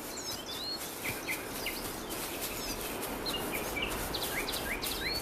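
Small birds chirping: many short, quick calls, some sliding up and some sliding down, over a steady background hiss.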